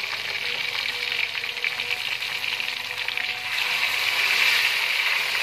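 Tomato slices sizzling in hot ghee with fried garlic-ginger paste in a frying pan, a steady hiss that grows louder about three and a half seconds in.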